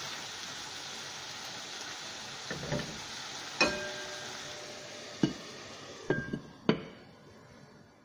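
Yardlong beans and tuyo sizzling in a frying pan while being stirred, a steady frying hiss that fades near the end. Several sharp clanks and clinks of cookware come in the second half, the first ringing on briefly.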